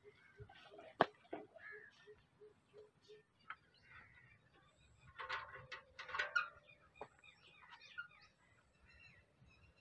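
Faint animal calls, short chirps and a few louder harsh calls about five to six and a half seconds in, over a quick regular ticking in the first three seconds, with one sharp click about a second in.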